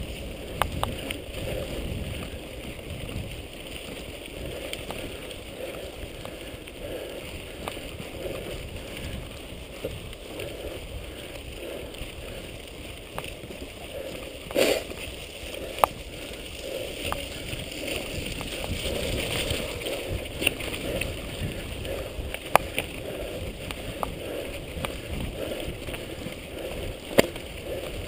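Mountain bike riding fast over a dirt forest singletrack: a steady rumble of tyres and wind on the microphone, with sharp rattles and knocks from the bike over bumps, the loudest a thud about halfway through.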